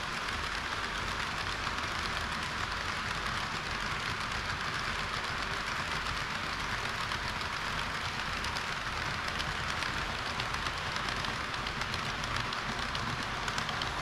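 HO-scale model trains running on sectional track: an EH200 electric locomotive's train of tank wagons and a KiHa 40 diesel railcar make a steady rolling whir with fine clicking from wheels on rail. It gets a little louder near the end as the railcar passes close.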